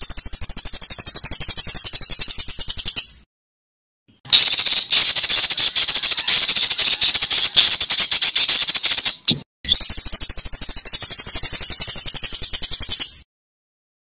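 A songbird's harsh, rapid rattling trill, repeated three times with short abrupt gaps between the phrases and stopping a little before the end. It is the rough, fast "tembakan kasar" call material used to tutor songbirds.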